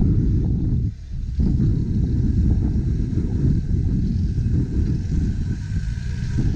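Land Rover Discovery Td5's five-cylinder turbodiesel engine working under load as the 4x4 climbs out of a ditch: a loud low rumble that drops off briefly about a second in, then comes back.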